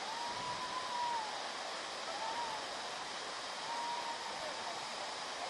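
Steady rushing of Kanchenjunga Falls, a tall waterfall pouring down a rock face, with a faint wavering high tone coming and going three times over it.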